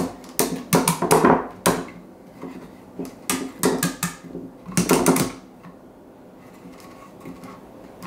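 Plastic clicks and knocks from a compact camping lantern's hinged light panels being swivelled and repositioned by hand, a string of sharp irregular clicks that stops about five seconds in.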